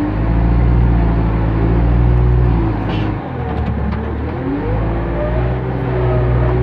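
JCB 3CX backhoe loader's diesel engine running under load as the front loader bucket digs into a dirt pile, heard from the cab. About three seconds in, the engine note dips and then climbs back.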